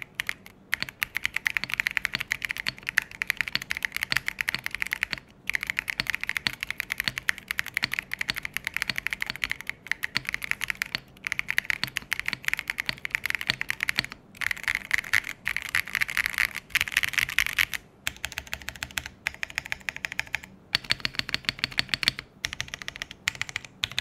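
Typing sound test on an MKC75, a 75% mechanical keyboard with an aluminium case, top-mounted with a polycarbonate plate and JWICK Splash Brothers switches. Fast, continuous keystrokes break off in short pauses every few seconds.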